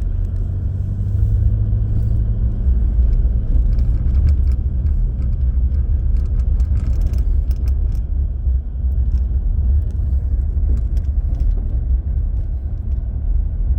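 Steady low rumble of a car heard from inside its cabin, with faint scattered light ticks and rattles over it.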